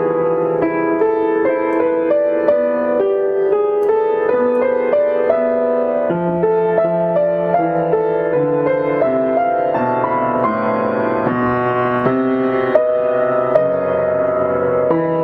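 Background piano music: a melody of evenly paced single notes over held lower notes.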